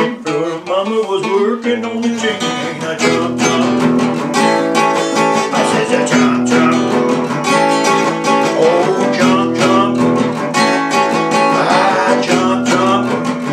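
Two acoustic guitars playing together, strumming a steady rhythmic groove through an instrumental break.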